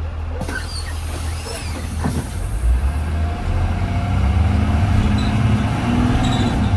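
2020 Blue Bird Vision school bus running, heard from inside the bus as a steady low engine hum with road noise; from about halfway through, the engine note climbs in pitch and gets louder as the bus pulls away.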